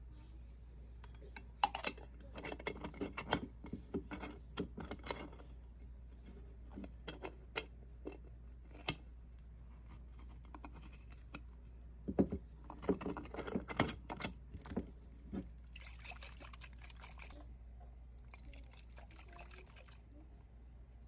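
A powdered drink mix being made up: liquid pouring, with two spells of clicks and knocks and a soft hiss near the end.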